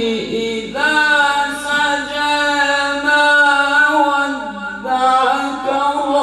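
A man reciting the Qur'an in the melodic tajweed style, chanting into a microphone. He holds long ornamented notes, with a short breath about a second in and a drop in pitch near the end.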